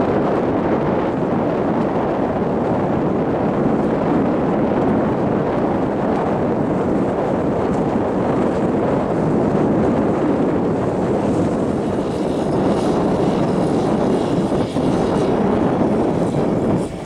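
Motorboat engine running at speed over choppy water, heard as a steady drone under a heavy rush of wind on the microphone.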